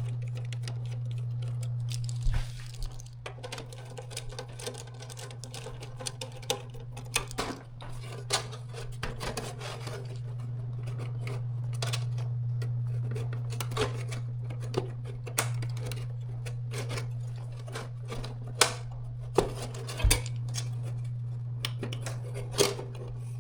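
Screwdriver and small screws clicking and tapping against the instrument's metal chassis as screws are taken out: irregular sharp clicks over a steady low hum.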